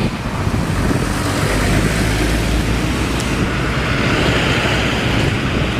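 A road vehicle in motion, its engine running under steady wind and road noise.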